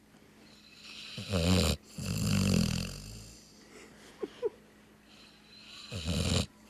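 Sleeping Labrador retriever snoring: two loud snores about five seconds apart, with softer breathing between.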